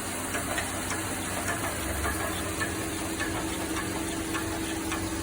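GMC Denali's 6.0L V8 engine running steadily at idle, with a light, regular ticking two or three times a second over the engine hum.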